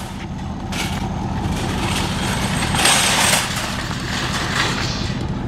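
Vehicle engine and road noise running steadily, heard from inside the cabin, with brief hissing about a second in and again around three seconds.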